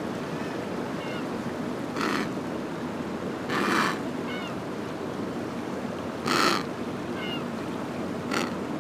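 Penguins calling: four short, harsh squawks and a few faint high chirps over a steady wash of surf.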